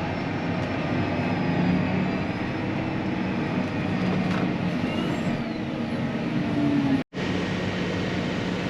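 Steady drone of a farm harvest machine's engine and drivetrain heard inside its cab, with a low hum and a faint wavering whine. The sound cuts out for a split second about seven seconds in.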